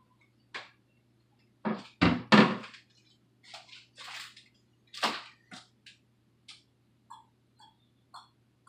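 Packing paper rustling and crinkling in irregular bursts as an item is wrapped and put into a box, loudest about two seconds in, then a few small clicks near the end.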